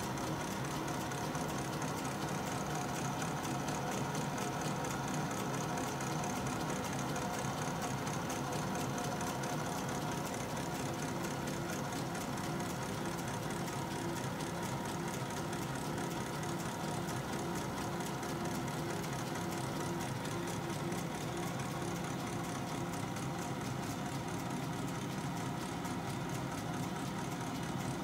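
Metal lathe running steadily under power feed, its motor and drive whirring evenly while a knurling tool presses a diamond knurl into a spinning plastic cylinder.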